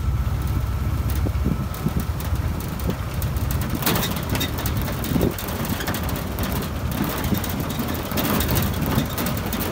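Vintage military vehicle driving along a road: a steady low engine and road rumble with wind buffeting the microphone and frequent short knocks and rattles.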